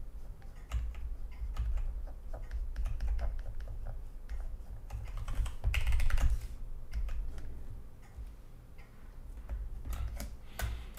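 Computer keyboard keys and clicks tapped in short, irregular runs while an image is being edited, over low thumps from the desk.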